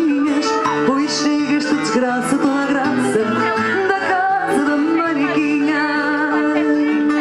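A woman singing fado, accompanied by Portuguese guitar and fado viola. She holds one long note near the end.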